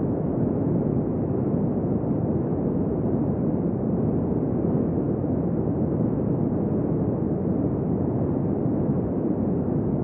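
Steady wind noise: a deep, dull rush at an even level, with no gusts, whistling or howling tones.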